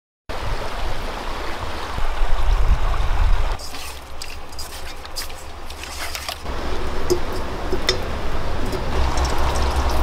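Shallow stream running over rocks, a steady rushing of water. About three and a half seconds in it cuts to a quieter stretch with scattered sharp clicks for about three seconds before the running water returns.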